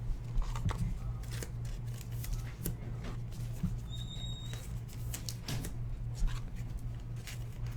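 Scattered light clicks and rustles of trading cards and their plastic sleeves and packaging being handled, over a steady low hum.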